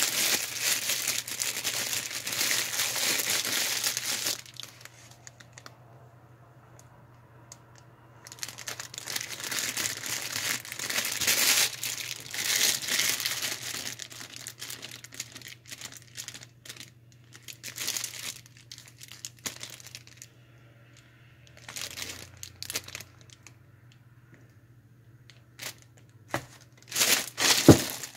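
Clear plastic bags of chalk and clay lumps crinkling as they are handled, in bursts: a long spell at the start, another in the middle, then shorter crinkles with quiet pauses between and a last loud burst near the end.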